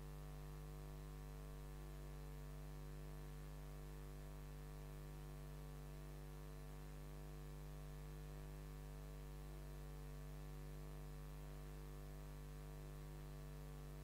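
Steady low electrical mains hum with a buzz of overtones above it and faint hiss.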